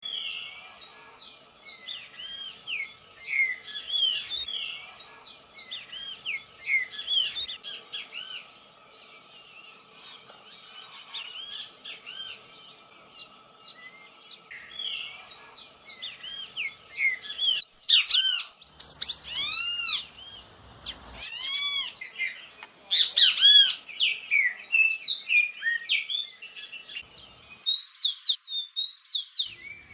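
Dawn chorus of many Atlantic Forest birds singing and calling over each other. Quick runs of repeated chirps and whistled notes, with louder bursts of song partway through.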